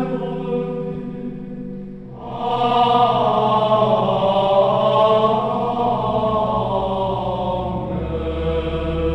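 Background music of sung chant, voices holding long notes; after a brief dip about two seconds in, a new, louder phrase begins, and a low held tone joins near the end.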